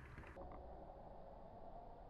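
Near silence: faint background noise, with a faint steady hum after an edit about half a second in.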